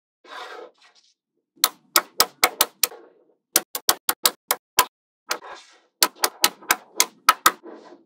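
Small magnetic balls clicking as they snap together, in three quick runs of sharp clicks, with a soft rattle of the balls being handled near the start and between the runs.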